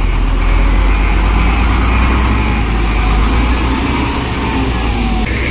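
Diesel engine of a hydraulic excavator running steadily, with a strong deep hum.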